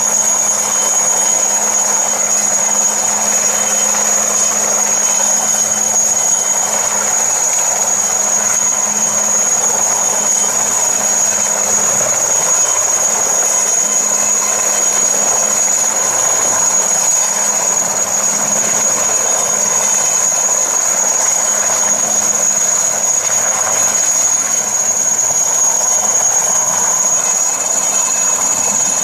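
IAR 330 Puma twin-turbine military helicopter hovering low, its engines and rotors running steadily with a high, steady turbine whine over the noise.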